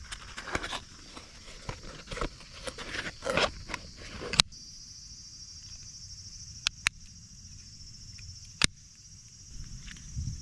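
Cardboard packaging rustling and crinkling as a small box is opened and handled. Then come a few sharp single clicks from the hard plastic magnetic hook discs being handled. A steady high-pitched insect drone runs underneath.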